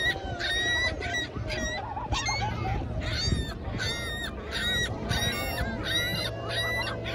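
Gulls calling over and over, about two short, sharp, pitched calls a second, as they squabble over picnic food.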